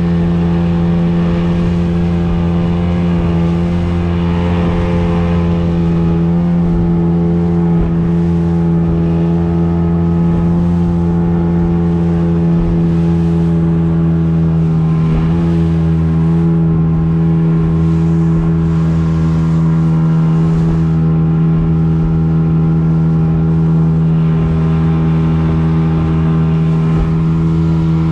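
Outboard motor on a small fibreglass fishing boat running at speed, a steady engine drone with a brief dip in pitch about halfway through.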